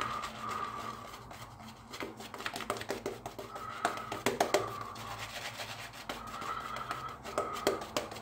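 Omega 48 boar-bristle shaving brush working Arko hard-soap lather over a week's stubble on the face and neck. It makes a wet, bristly scratching with many quick ticks as the brush is swirled back and forth.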